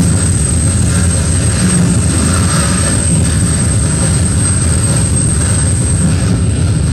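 Live harsh noise music from electronics and effects pedals: a loud, steady, dense low rumble with a thin high whine held on top.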